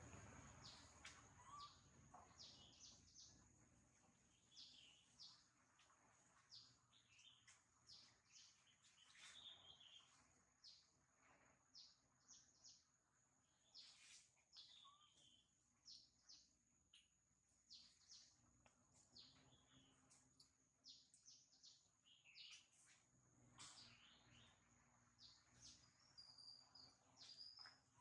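Faint woodland ambience: many short, high bird chirps, one after another, over a steady high-pitched whine.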